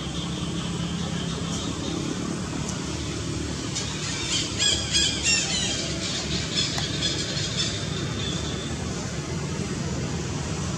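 Baby macaque squealing: a run of short, high-pitched cries lasting about three seconds, starting about four seconds in. A steady low rumble runs underneath.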